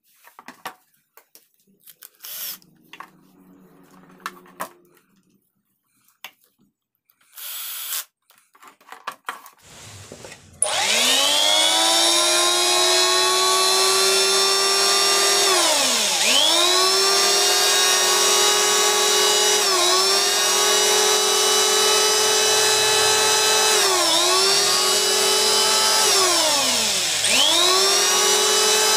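A few clicks and knocks of the tool being handled, then about ten seconds in a BULL electric hand planer is switched on and runs at full speed with a high whine. Four times its pitch sags and climbs back as the trigger is let off and pressed again. This is the test run after its bearings were serviced, the fix for a planer that runs rough and drags at the end of a pass.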